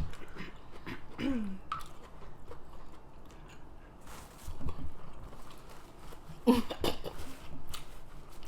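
Close-miked chewing and wet mouth smacks from eating a seafood boil, with scattered clicks and a louder burst of mouth noise about six and a half seconds in.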